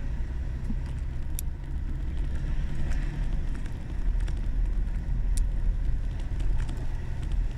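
Steady low rumble of a car running, with two sharp clicks, one about a second and a half in and one about five seconds in.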